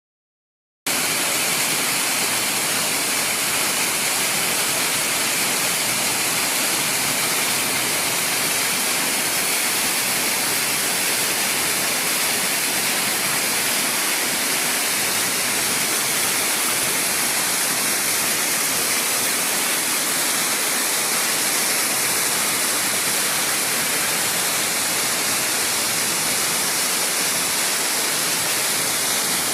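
Waterfall rushing: a steady, unbroken roar of falling water that starts abruptly about a second in.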